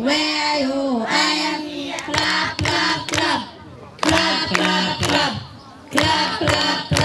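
A group of young schoolgirls singing a song together into a microphone, clapping their hands along with it in short phrases.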